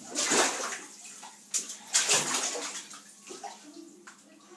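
Bathwater thick with tomato soup sloshing and splashing in a bathtub as a child lowers himself in and sweeps his hands through it: two louder splashes in the first half, then quieter swishing.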